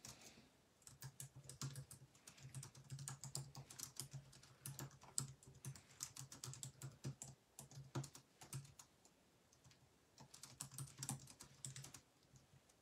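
Faint typing on a computer keyboard: irregular runs of quick key clicks, with a short pause about three-quarters of the way through.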